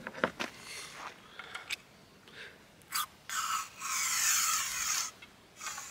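Wooden ramrod scraping down the bore of a side-by-side muzzleloading shotgun, pushing an over-powder card down onto the powder charge. A few light knocks come first, then a steady scrape of about two seconds in the second half.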